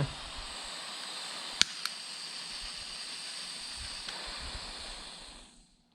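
Butane soldering iron running with a steady hiss of burning gas, with two sharp clicks a little over a second and a half in; the hiss dies away about five and a half seconds in.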